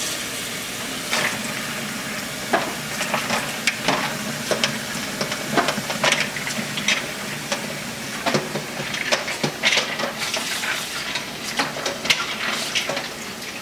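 Kitchen faucet running a steady stream into a stainless steel bowl of water full of mushrooms and lemon halves, with scattered splashes and knocks as a hand stirs through them to pick out the lemons.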